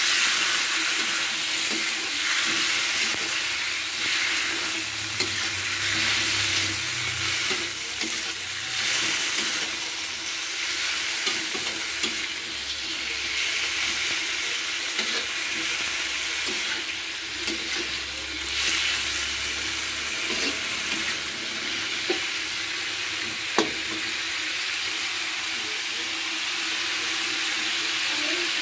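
Mushrooms sizzling in hot oil in a wok as they are stirred and scraped with a metal spatula, with a few sharp clicks of the spatula against the pan.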